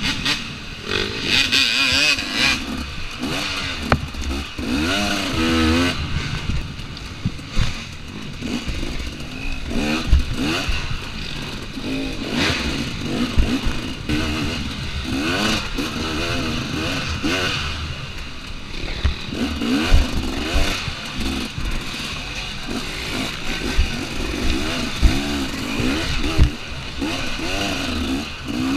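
2014 KTM 250 XC-W two-stroke dirt bike engine revving up and down over and over while riding trail, with scattered sharp knocks.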